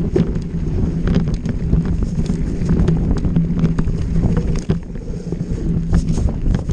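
Off-road motorcycle engine running at a steady drone, with frequent knocks and rattles from riding over rough trail and wind buffeting the microphone.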